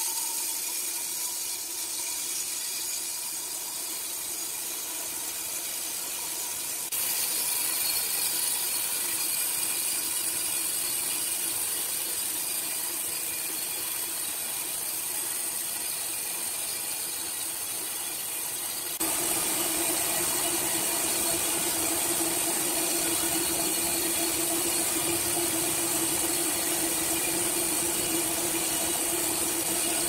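Horizontal band sawmill running, its blade cutting lengthwise through a large timber slab: a steady machine hum with a high hiss. The sound changes abruptly twice, and for the last third a steady hum is stronger and a little louder.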